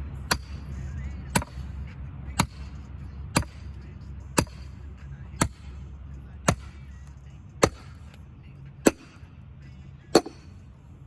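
Axe chopping wood: about ten sharp, evenly paced strikes roughly a second apart, slowing slightly near the end, over a steady low hum.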